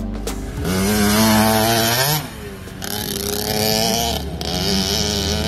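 Small youth KTM dirt bike engine revving up to a high, steady pitch for about a second and a half, dropping off, then running steadily again at a lower level as the bike rides off.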